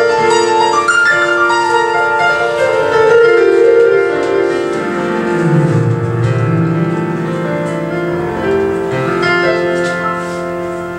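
Solo piano introduction played on a Yamaha electronic keyboard with a piano sound: sustained chords with a melody over them, leading into a song.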